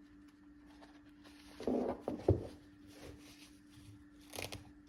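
Velcro harness straps on a small RC skydiver figure being pulled open: a short rip about two seconds in and another near the end.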